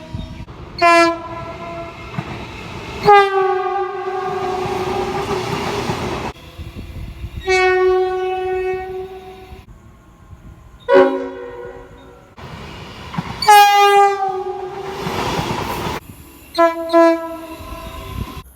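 Train horns sounding in a series of separately edited clips: several long blasts and a few short ones, two short toots close together near the end. Two of the long blasts drop in pitch as they begin, over the rumble of a passing train.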